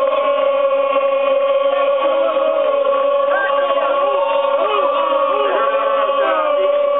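Large crowd of football ultras chanting in unison, many voices singing together, with a steady tone held beneath the voices throughout.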